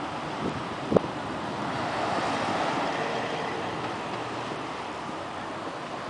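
Steady outdoor noise of road traffic and wind on the microphone, swelling for a couple of seconds in the middle, with a sharp knock about a second in. A digital billboard's cooling fan is at about the distance where it fades out, roughly 150 feet away.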